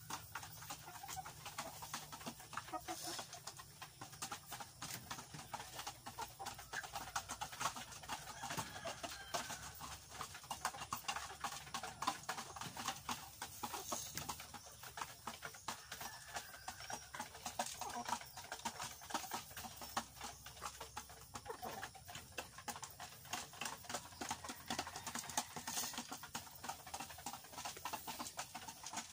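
Rhode Island Red hens clucking softly as they crowd together, with many quick taps and scratching throughout as they peck at the ground and feed.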